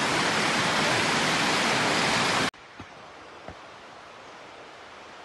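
Steady rush of flowing water, loud and even, that cuts off abruptly about halfway through, leaving only a faint hiss with two soft knocks.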